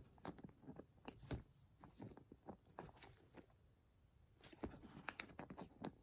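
Faint handling of a leather handbag: soft rustles of the flap and scattered small clicks from its metal turn-lock clasp as the bag is opened and closed, with a run of clicks near the end as the clasp is turned shut.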